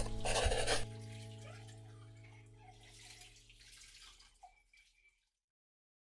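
Background music of sustained tones fading out to silence about five seconds in, with a loud hiss of rushing noise over it for the first second.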